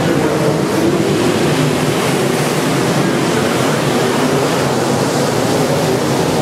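Pack of dirt-track modified race cars running at speed, a steady wash of many V8 engines at once with no pause.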